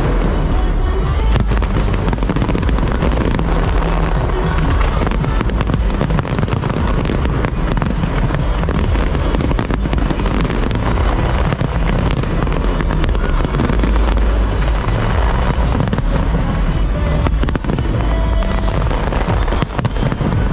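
A big fireworks display: a dense, continuous barrage of bursting and crackling aerial shells, over a music soundtrack with a heavy bass.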